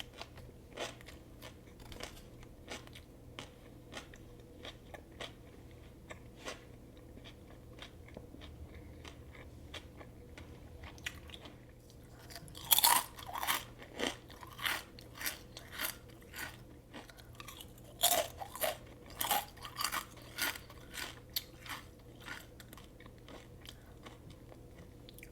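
Close-miked chewing of a turkey sub: soft, steady chewing at first, then two loud crunchy bites about five seconds apart, each followed by a run of crunchy chews.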